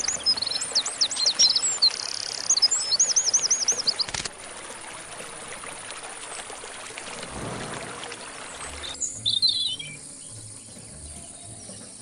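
Birds chirping and whistling in quick high trills over a steady hiss. The birdsong is dense for the first few seconds and returns as a brief chirp near the end.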